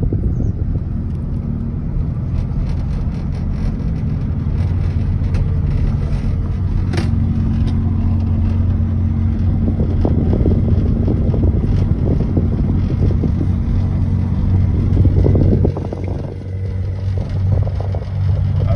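2008 Chevrolet Silverado 4WD V6 automatic heard from inside the cab while driving: road rumble with a steady, low droning hum that strengthens a few seconds in. This is the really bad harmonic vibration that comes in at about 20 mph, which the owner guesses is in the transmission or transfer case.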